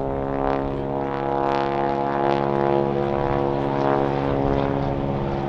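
Boeing Stearman biplane's radial engine and propeller running steadily in flight, a continuous buzzing drone.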